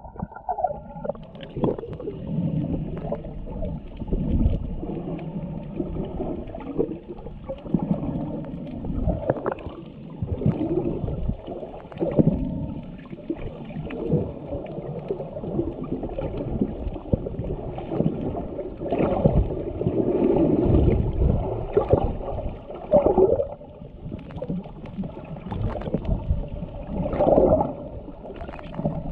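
Muffled underwater sound picked up by an action camera held below the surface: water gurgling and sloshing, with irregular dull thumps and swells.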